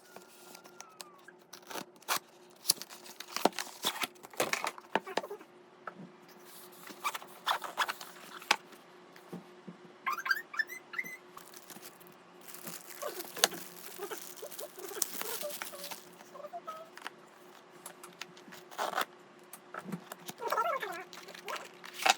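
Small objects being handled at close range: irregular clicks, taps and rustling, with a few short squeaks and a steady faint hum underneath.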